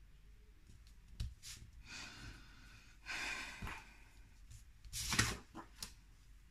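Paper and card being handled and slid over a cutting mat: several short rustles and scrapes, the loudest about five seconds in.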